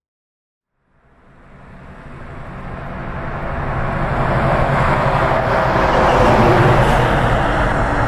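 An 18-wheeler semi truck driving fast toward the listener, its diesel engine and tyres growing steadily louder from about a second in and loudest near the end.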